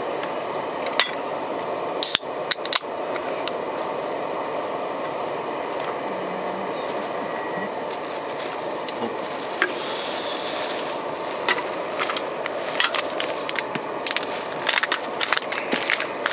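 A drink poured from a can into a cup, with a short hiss about ten seconds in. Scattered light clicks and knocks of the can and cup being handled sound over a steady rushing background noise.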